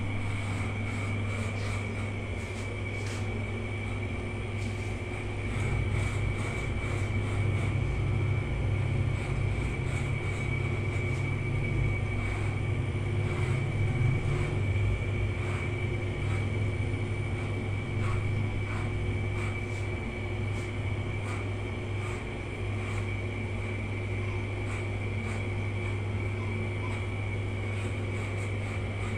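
Corded electric hair clippers buzzing steadily while cutting hair, the buzz growing louder for several seconds in the middle.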